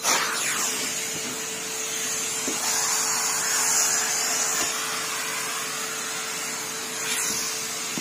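Numatic Henry vacuum cleaner running steadily: a constant hum with a high hiss of air.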